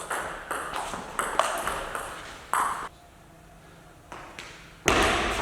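Table tennis rally: the ball clicking sharply against the paddles and table in a quick run of knocks, then a pause. A louder burst of sound comes near the end.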